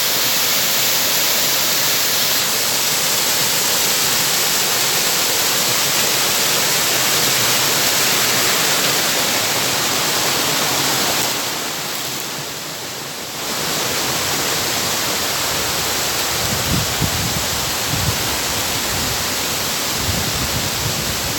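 Rushing water of a waterfall or river: a loud, steady hiss with no pitch to it. It dips briefly a little past the middle, and low rumbles come in near the end.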